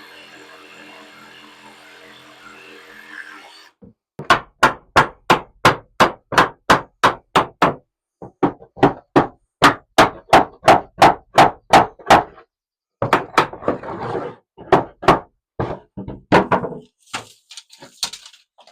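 Rapid, regular hammer strikes on timber, about three a second for roughly eight seconds, then a looser, slower run of blows. A steady hum comes first and stops a little before four seconds in.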